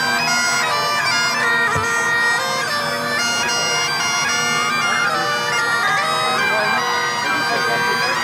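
Highland bagpipes playing a tune: the chanter's melody moves over the steady hum of the drones.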